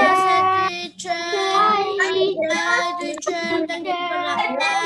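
Children singing a song together, with a woman's voice among them, in held, sung notes with short breaks between phrases.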